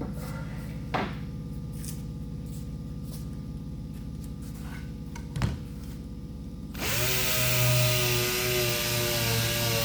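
A steady low hum with two light knocks. About two-thirds of the way in, an electric sander switches on, spins up within a fraction of a second and runs steadily with a whine over a hiss.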